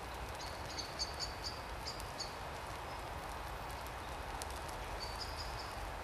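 A small songbird giving short, high chirps in two quick strings, over the steady rush of a fast-flowing river.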